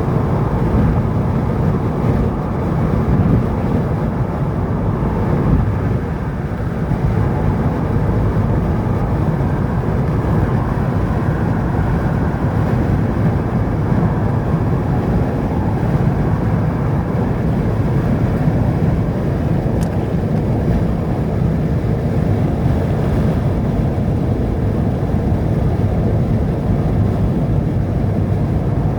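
Steady low rumble of a moving vehicle, even throughout with no distinct events.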